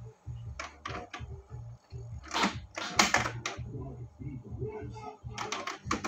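Canon iP2770 inkjet printer running its start-up routine after being switched on: a low motor whir that starts and stops in short runs, with a string of sharp mechanical clicks and clacks from the print mechanism. The routine ends with the printer ready to print.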